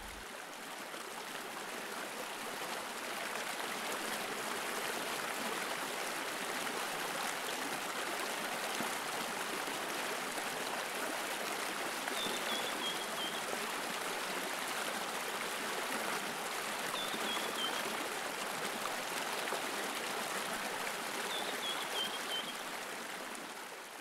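Steady running water of a flowing stream, with three short high falling chirps in its second half; it fades away near the end.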